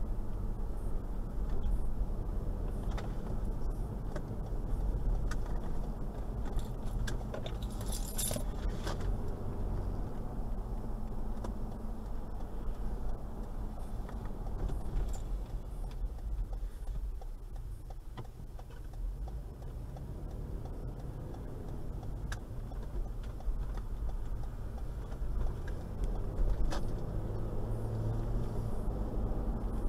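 Steady low engine and road rumble of a Toyota Land Cruiser 120 (Prado) driving at city speeds, heard inside the cabin, quieter for a few seconds in the middle as it slows. Scattered light clicks and rattles, with a brief metallic jingle about eight seconds in.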